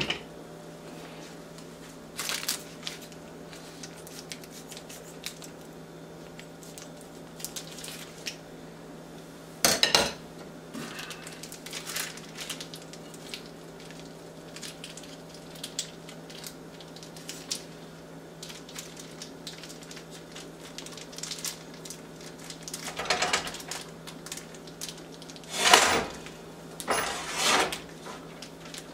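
Scattered knocks and clatters against a frying pan, with rustling of plastic wrapping, as a frozen chub of ground venison is worked out of its wrapper into the pan. The loudest clatters come about ten seconds in and near the end, over a steady low hum.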